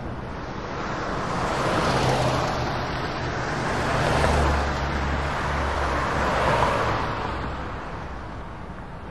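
Road traffic noise in a tunnel, heard from inside a moving car: tyre and engine noise that swells and fades three times, with a deep engine rumble in the middle.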